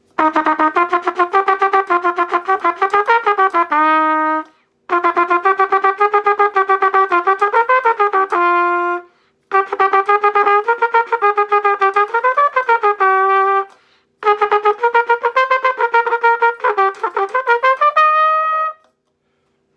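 Bundy cornet playing a fast sixteenth-note exercise in four phrases. Each phrase is a quick run of separately tongued notes ending on a held note, with short breathing gaps between phrases. The used horn plays cleanly through the run, passing its function check.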